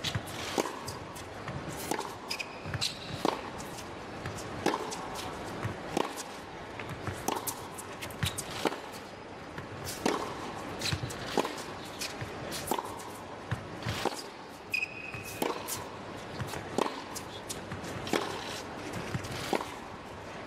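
Tennis rally on an indoor hard court: the ball is struck by racquets back and forth, a sharp pop about every second and a third, some fifteen times. Two short shoe squeaks on the court come near the start and about two thirds of the way through.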